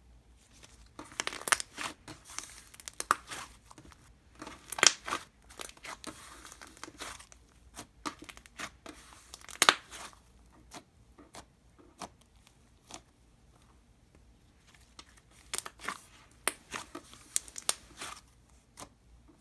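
Cloud mousse slime being stretched and pressed by hand, giving sizzly crackling pops and tearing sounds in irregular clusters, with a few quieter seconds in the middle.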